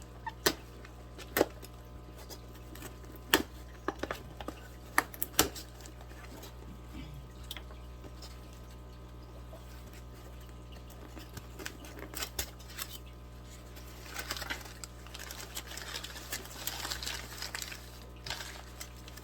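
A shipping box being unpacked by hand: scattered sharp clicks and knocks of the cardboard and contents, then rustling of packing material over the last few seconds, with a steady low hum underneath.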